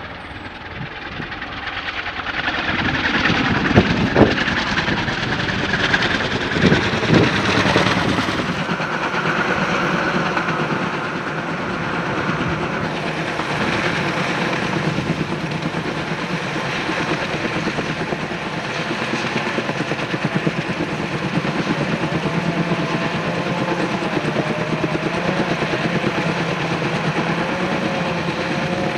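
Loud, steady machinery noise from helicopter logging: an intermeshing-rotor logging helicopter's rotors and engine, growing louder over the first few seconds, with a few sharp knocks around four and seven seconds in. Later comes a steady engine hum with a wavering whine near the end.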